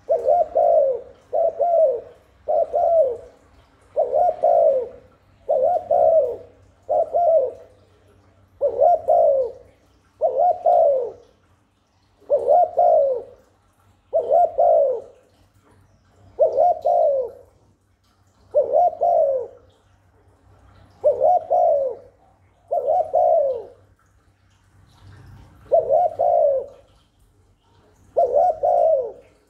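Spotted dove giving its short 'gù' coos, repeated about every one and a half to two seconds, a few in quick pairs near the start. This is the coo used to provoke and call in another dove.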